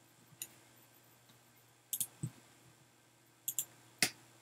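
Scattered sharp clicks from a computer keyboard or mouse while a terminal command is entered: a single click, then quick pairs and singles, the loudest one near the end.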